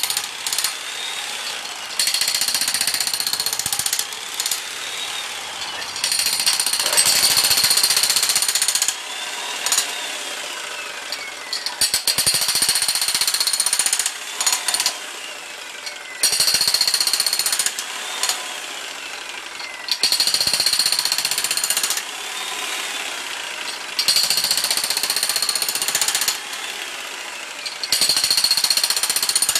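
A 75-pound corded electric Makita demolition hammer with a spade bit breaks up compacted soil. It hammers in repeated bursts of a couple of seconds, with short pauses between them.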